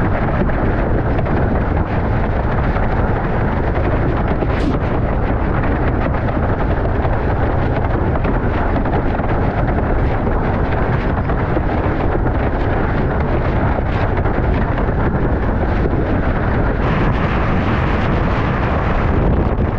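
Loud, steady rumble of strong wind buffeting a GoPro Hero9 Black's microphone as the windsurfer sails fast through 20–40 knot storm gusts.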